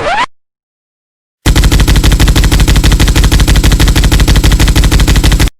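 Minigun sound effect: a loud, very rapid continuous burst of fire lasting about four seconds, starting about one and a half seconds in and cutting off abruptly. At the very start, the tail of a short rising whistle-like sweep.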